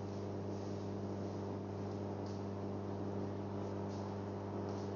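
Steady low electrical hum over a faint hiss, with a few soft brief high-pitched rustles.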